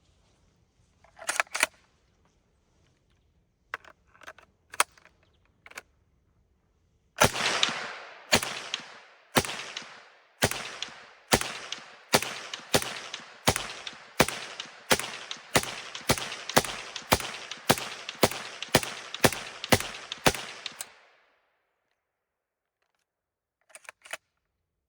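Zastava M56 submachine gun in 7.62x25 Tokarev fired semi-automatically: a string of about twenty shots, each with a short echo, spaced about a second apart at first and quickening to about two a second. A few sharp metallic clicks come before the string, and a brief pair comes near the end.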